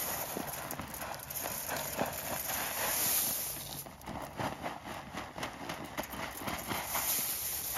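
Shelled corn being poured out onto snow-covered ground. There is a dense rush of kernels for about the first four seconds, then it breaks up into a quick patter of separate clicks.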